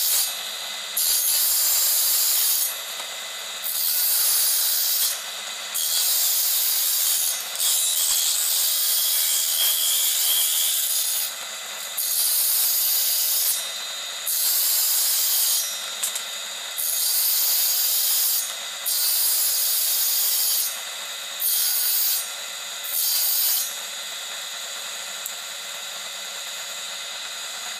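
A tool working a small piece of wood in repeated rasping passes, each about one to two seconds long with short pauses between.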